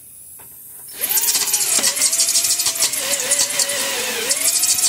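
Cordless drill boring into a rusted broken screw in steel car bodywork, starting about a second in: the motor's whine wavers in pitch over the scraping grind of the bit cutting metal.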